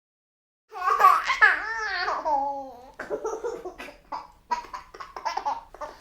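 A baby laughing, starting about a second in: a drawn-out squeal that rises and falls in pitch, then a run of short, breathy bursts of laughter.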